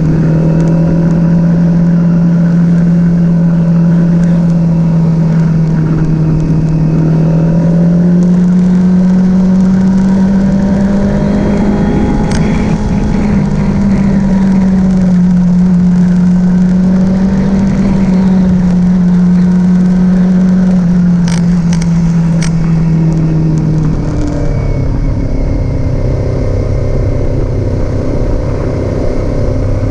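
Kawasaki Z400 parallel-twin motorcycle engine running at a steady speed. Its pitch rises a little partway through and drops lower near the end, with a few brief clicks in between.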